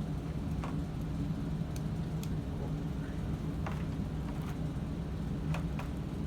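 A steady low hum, with a few faint scattered clicks and taps from a plastic dinosaur action figure being handled.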